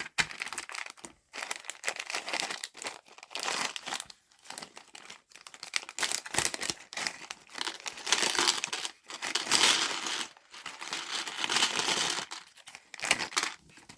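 Plastic packaging crinkling as it is handled and opened, in irregular crackly spells with short pauses, loudest in two stretches.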